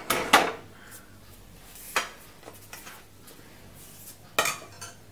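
A cookware kadai and spatula clattering as the pan is lifted off a gas stove's burner grate: a couple of sharp knocks right at the start, a single knock about two seconds in, and another short cluster of clinks near the end.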